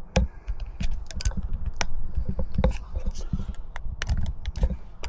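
Scattered plastic clicks and knocks as a Cobb Accessport cable is plugged into a car's OBD2 port, over low bumping and rustling from the handling.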